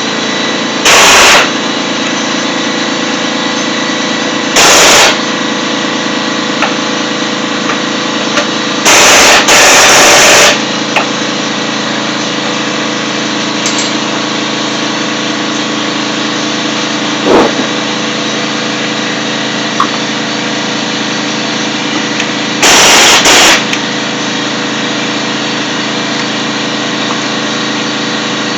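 Power tool, likely an impact wrench, running in several short, loud rattling bursts as it tightens the 10 mm bolts on a newly fitted idler pulley, over a steady mechanical hum.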